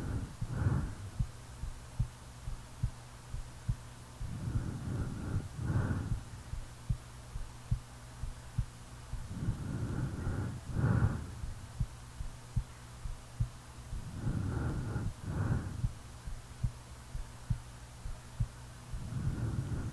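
A sleeping woman's heartbeat, a steady thud a little over once a second, with slow snoring breaths about every five seconds, each an in-breath followed by a louder snore. A low steady hum lies underneath.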